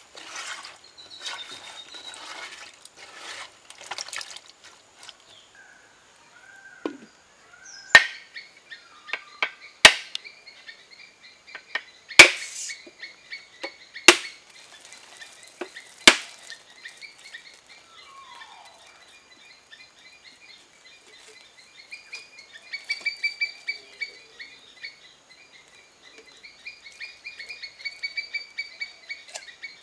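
A mature coconut is struck hard with a knife to crack it open: five sharp knocks about two seconds apart, with lighter taps between them. Before that comes a brief wet squelching of hands mixing potato slices in a clay pot. Near the end, insects are chirring rhythmically.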